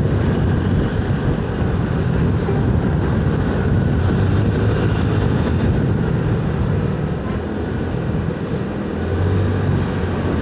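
Road noise from a moving motorcycle on a busy highway: the rush of wind and tyres with the bike's engine and the engines of nearby trucks and motorbikes underneath. A low engine hum grows stronger near the end as the bike draws alongside a box truck.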